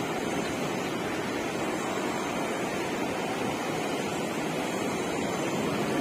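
Steady rushing of river water: an even hiss with no separate splashes or other events.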